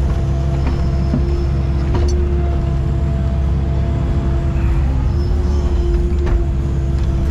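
An excavator's diesel engine running steadily under load, heard from inside the cab, with a constant hum over the engine drone as the arm swings and the bucket dumps sand. A few faint clicks and knocks come through.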